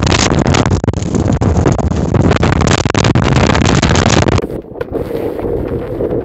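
Gale-force wind buffeting the microphone, a loud gusting rush, which gives way about four seconds in to quieter wind and breaking surf.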